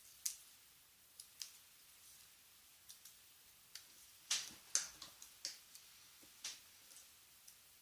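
Irregular small clicks and taps of a plastic car-alarm key fob case being handled and fitted together, about a dozen, the loudest two a little past the middle.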